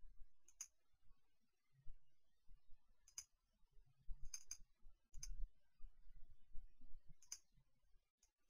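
Faint, sharp computer mouse-button clicks, about half a dozen spread out with pauses between them, two close together near the middle.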